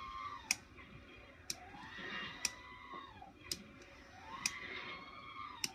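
Automatic car wash machinery heard from inside the car. A whine rises, holds and falls again about every three seconds, with a sharp click about once a second.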